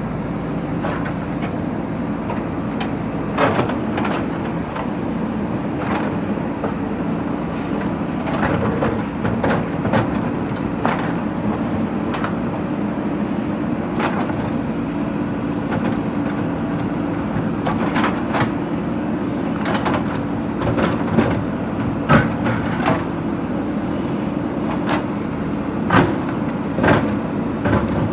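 JCB backhoe loader's diesel engine running steadily, with repeated sharp knocks and clanks as the bucket breaks up and moves bricks and stones. The loudest knocks come in the second half.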